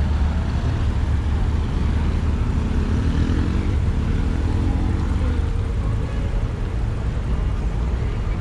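City street traffic: a steady low rumble of passing cars, with one vehicle's engine rising in pitch as it accelerates, from about two to five seconds in.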